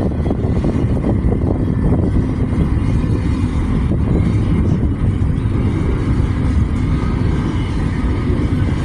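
CSX freight train rolling past close by: a loud, steady rumble of steel wheels on the rails.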